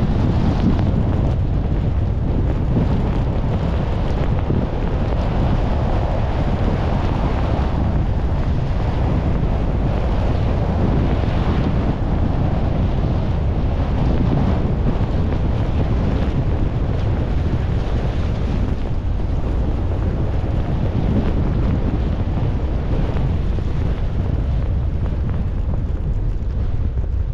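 Wind buffeting the microphone over the rush of rain and wet-road noise from a car driving along a rain-soaked road: a steady noise, heaviest in a deep rumble.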